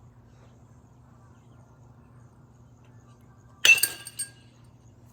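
Baseball struck by a Marucci CAT X Connect bat: a single sharp, ringing ping about three and a half seconds in, followed by a smaller knock about half a second later.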